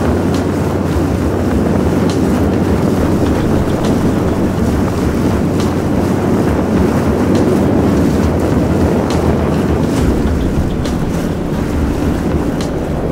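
Speedboat outboard motor running steadily under way, with wind buffeting the microphone.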